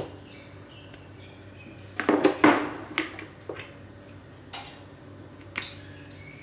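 Kitchen clatter of seasoning containers and utensils being handled over a plastic tub of flour: a sharp click at the start, a flurry of clinks and knocks about two seconds in, then a few single taps.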